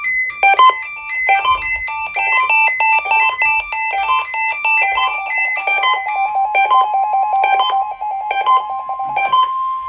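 Several weather radio receivers, a Uniden among them, alarming at once for a NOAA Weather Radio test: overlapping electronic beeps and chirps jumping between pitches. A fast run of short beeps starts about five seconds in, and a steady high tone joins about a second later.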